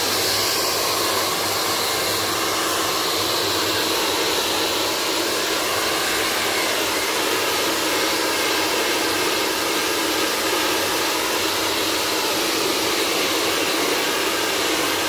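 Pet hair blower running steadily, air rushing from its hose nozzle onto a wet dog's coat, with a low hum underneath.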